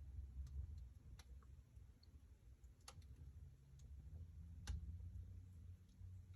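Wood fire in a fireplace crackling faintly: a few sharp, irregular pops, the loudest two near the middle and about two-thirds of the way through, over a low rumble.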